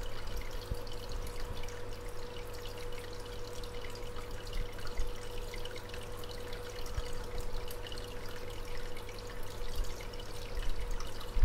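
Aquarium water trickling and splashing, as from a filter return breaking the surface, with a steady hum underneath.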